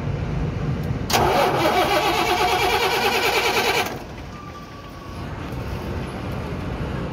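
A Tata truck's Cummins diesel engine being cranked by its starter motor for about three seconds, with an even pulsing of about nine beats a second, during a hard-starting problem. The cranking stops suddenly, leaving a lower steady engine rumble.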